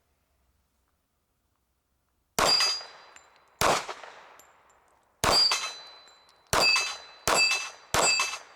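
Six pistol shots fired at an uneven pace, each answered by the clang of a hit steel plate that rings on for a moment before fading. The shots start a couple of seconds in and come faster toward the end.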